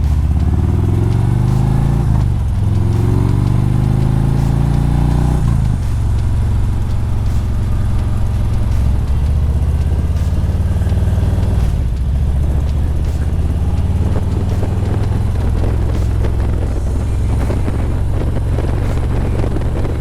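Harley-Davidson Road Glide's Milwaukee-Eight V-twin accelerating through the gears, its pitch rising, dropping at a shift about two seconds in, rising again and dropping at another shift after about five and a half seconds, then holding steady at cruising speed. Wind rush over the helmet-mounted microphone runs underneath.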